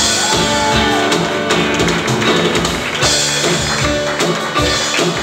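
Live band playing an instrumental vamp with guitar and piano.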